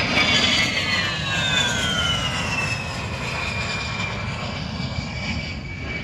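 A-10 Warthog's twin TF34 turbofan engines whining on a low fly-by. The whine falls in pitch over the first three seconds as the jet passes and moves away, then holds steady as it gets a little quieter.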